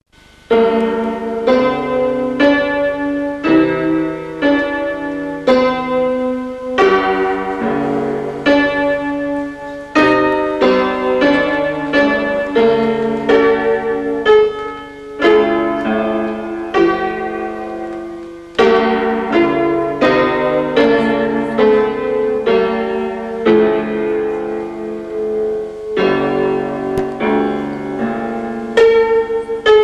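Solo piano music: a steady run of struck chords and melody notes, starting about half a second in.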